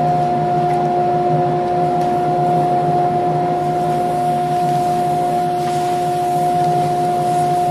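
Shop dust collector running, sucking sawdust off the CNC router's plywood spoilboard through a flexible hose with a brush nozzle. A loud, steady whine with two fixed pitches.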